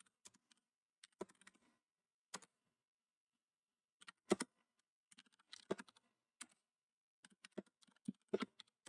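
Faint computer keyboard typing: irregular single keystrokes, a gap of about a second and a half, then quicker runs of keys.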